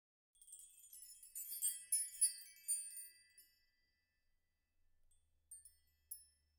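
High, tinkling chime sound effect. A cluster of glittering bell-like tones thins out after about three seconds into a couple of single tings near the end.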